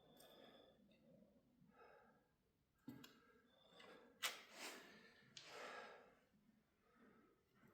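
Near silence, with a faint knock about three seconds in, a sharp click a little after four seconds, and two short breathy noises.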